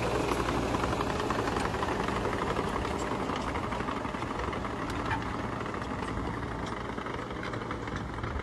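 Crawler tractor's diesel engine running steadily under load while pulling a disc harrow through cloddy soil, slowly growing fainter as it moves away.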